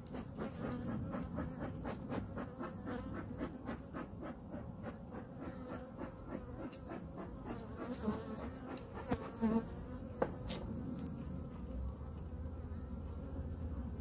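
Honey bees buzzing over an open hive of exposed frames, a steady, wavering hum, with a few sharp knocks about nine and ten seconds in.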